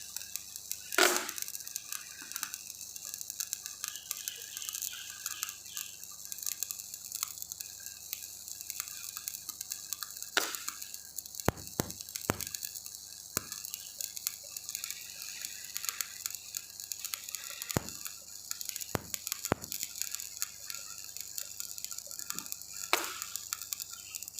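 Welding arc crackling and hissing steadily while a vertical joint is welded, with a few sharp knocks and clicks over the top.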